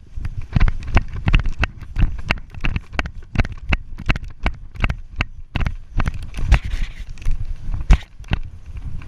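Footsteps on woodland ground with knocks from the player's own kit: a string of irregular thuds and clicks, a few per second.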